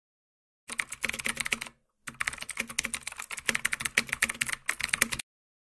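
Computer keyboard typing sound effect: rapid key clicks that start about a second in, pause briefly, then run on until shortly before the end. It goes with on-screen text being typed out.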